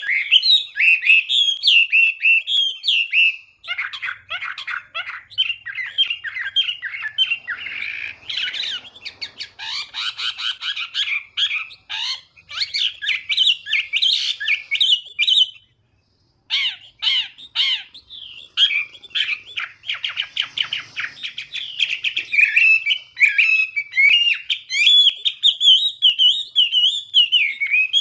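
Chinese hwamei singing a long, rapid, varied song of warbled and whistled phrases, with a brief pause about halfway through.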